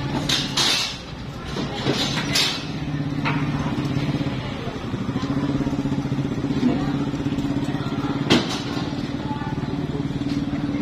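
An engine running steadily at idle, with a few short noisy bursts in the first couple of seconds and a sharp click about eight seconds in.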